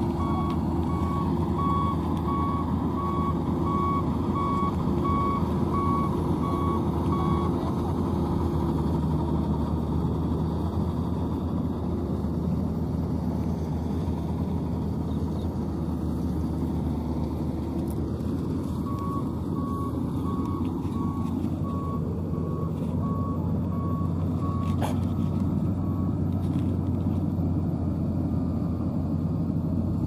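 Maxxi NDR85 combine harvester's diesel engine running steadily as it harvests rice. Its warning beeper sounds in regular beeps, about two a second, for the first seven seconds or so and again for about seven seconds after the middle.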